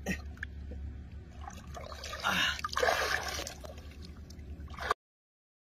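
A person wading through shallow muddy water, the water sloshing and splashing around the legs, loudest about two seconds in, then cutting off abruptly near the end.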